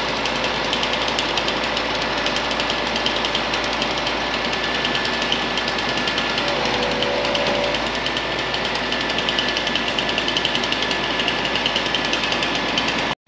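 Diesel engine of a lorry-mounted crane running steadily at a constant speed with a rapid clatter, driving the crane's hydraulics.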